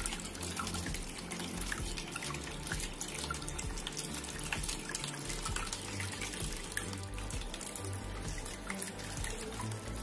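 Water trickling and splashing steadily as thin streams fall from pot to pot of a small tiered tabletop waterfall fountain onto pebbles, with many small splashes.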